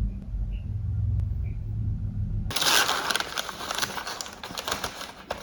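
A low steady hum, then, after an abrupt cut about halfway through, dense crackling and rustling like paper or plastic packaging being handled close to the microphone.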